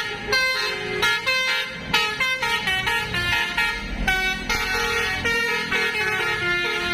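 A bus's Basuri musical air horn playing a tune: a run of short held notes, several a second, stepping up and down in pitch without a break.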